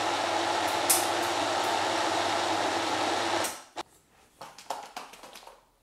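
Countertop blender motor running steadily as it purées onion, leek, ginger, garlic and spices in oil, then switched off about three and a half seconds in; a few faint knocks follow.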